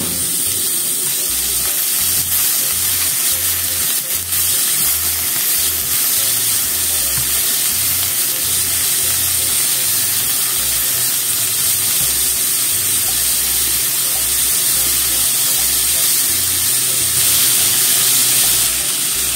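Shimeji mushrooms and cabbage sizzling steadily in olive oil in a frying pan while being stir-fried, with chopsticks stirring and tossing through them.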